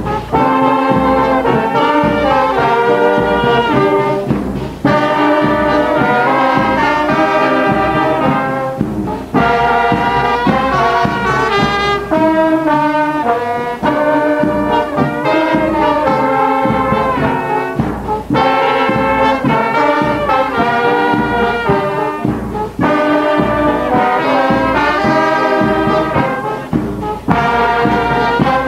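Brass band music: brass instruments play melodic phrases together over a steady beat, pausing briefly every few seconds between phrases.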